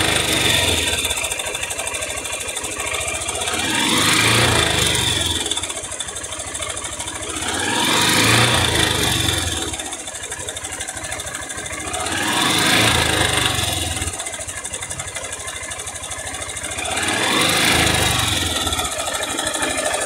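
160 cc single-cylinder motorcycle engine revved about five times, a few seconds apart, settling back toward idle in between, with a rattlesnake-like rattling knock. The mechanic diagnoses it as the start of piston slap: a worn piston skirt knocking in the cylinder, still mild.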